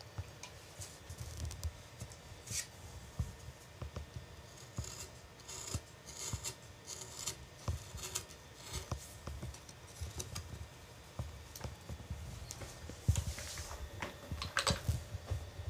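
Hand carving gouge cutting into wood: short, irregular slicing and scraping cuts with small clicks of the tool. A few louder knocks and rubs near the end.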